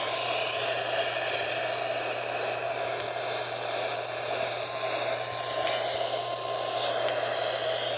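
Radio receiver static: a steady hiss with a low steady hum underneath and no program audio.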